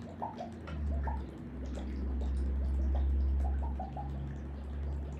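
Thick blended green aguachile sauce (lime juice, chiles and cucumber) pouring from a blender cup onto raw shrimp in a glass bowl, with small glugs, drips and ticks over a steady low rumble.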